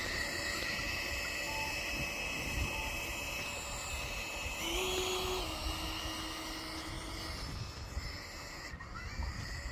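Zeus RC model jet taxiing at low power: a thin, steady whine that glides up in pitch about five seconds in, then holds, over low wind rumble on the microphone.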